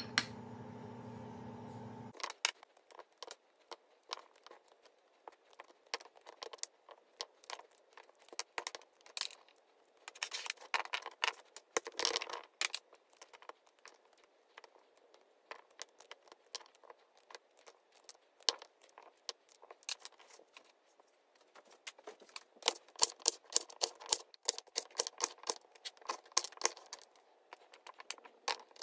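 Kitchen knife trimming and halving Brussels sprouts on a wooden cutting board: irregular sharp knocks of the blade on the board with crisp tearing of the leaves, quickening into a dense run of cuts near the end. A steady hum fills the first two seconds, then stops suddenly.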